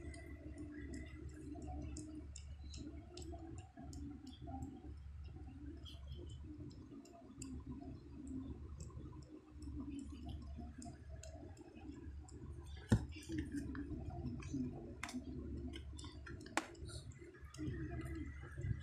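Siamese mother cat licking a newborn kitten: soft wet licks and small clicks, with a sharper click a little past the middle and two more near the end, over a steady low hum.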